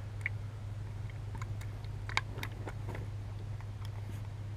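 Faint scattered clicks and light taps from objects being handled, over a steady low hum.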